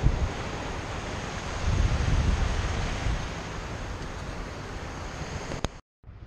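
Surf washing in over wet sand, with wind buffeting the microphone: a steady rush that swells for about a second, two seconds in. Near the end, a click and then a brief dropout.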